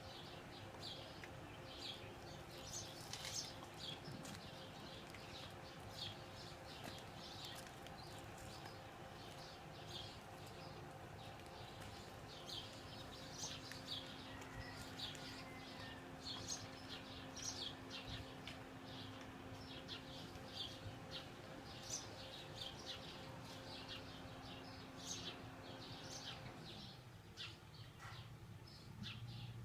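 Small birds at a nest chirping: short, high chirps repeated several times a second throughout. A faint steady hum sits underneath and stops near the end.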